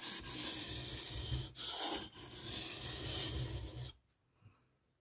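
Steel knife blade scraping back and forth across a water-soaked Parkside 2-in-1 combination whetstone: a steady grinding scrape with a couple of short breaks between strokes, stopping about four seconds in.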